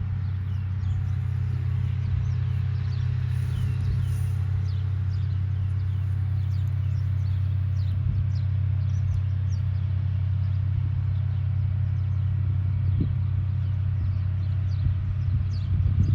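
Birds chirping, many short high calls repeated throughout, over a steady low rumble.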